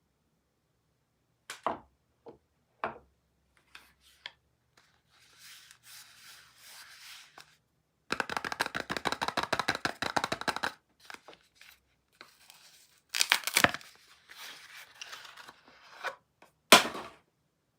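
Soap being unpacked by hand: packaging rustling and tearing, with a dense run of rapid crackles for about three seconds near the middle. A few sharp knocks stand out, the loudest near the end.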